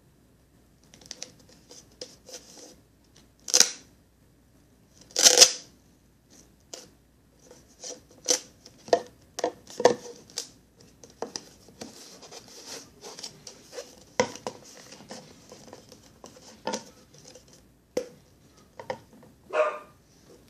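Duct tape being pulled, torn and pressed onto a plastic jug: a few short ripping sounds, the loudest about five seconds in, amid crinkling and light knocks from handling the jug.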